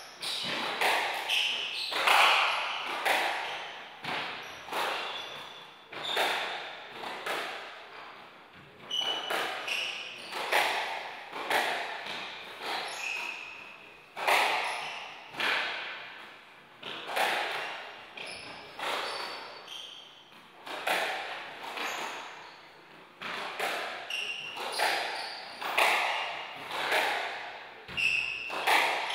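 Squash rally: the ball cracks off rackets and thuds against the court walls in sharp, echoing hits about once a second. Short high squeaks from players' shoes on the wooden floor come between the hits.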